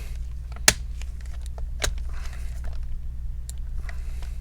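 Screwdriver bit working a stiff laptop hinge screw: a few sharp clicks of metal on metal, the loudest about two-thirds of a second in and another near two seconds, with light scraping as the hinge is turned.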